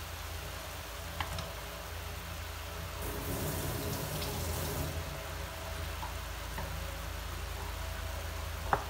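Pork pieces sizzling faintly in a stainless steel pot while being stirred with wooden chopsticks. The sizzle is stronger for a couple of seconds around the middle, and the chopsticks click lightly against the pot about a second in and near the end, over a steady low hum.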